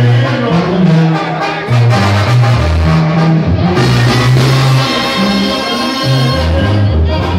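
Loud Latin band music with a brass section and trumpets over a moving bass line and steady percussion.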